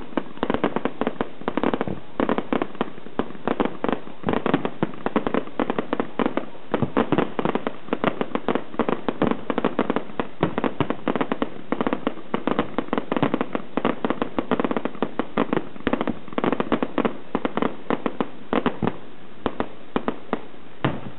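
Fireworks display: aerial shells bursting in a dense, unbroken string of bangs and crackles, many a second.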